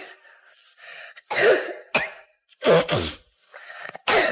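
A child coughing in a row of short coughs, three loud ones about a second and a half apart. This is a reflux cough, set off when stomach contents rise through the oesophagus into the throat and irritate its lining.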